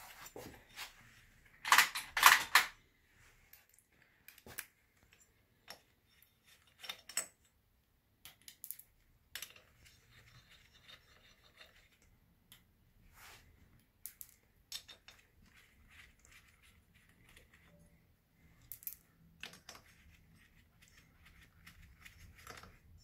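Scattered metal clicks and clinks of hand tools loosening the cylinder head nuts on a scooter's two-stroke engine, with a short, louder clatter about two seconds in.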